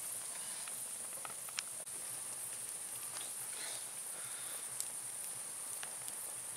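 Wood campfire crackling, with a few sharp pops, the clearest about a second and a half in. Under it runs a steady high-pitched insect chirring.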